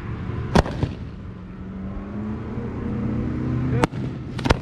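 Aerial fireworks shells bursting: a sharp boom about half a second in, then two more close together near the end, over a steady low hum.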